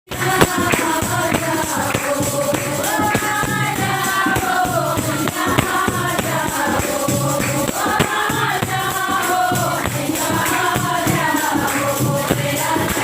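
Hindu devotional kirtan to the Mother Goddess: voices singing a bhajan together over a fast run of sharp hand-percussion strokes.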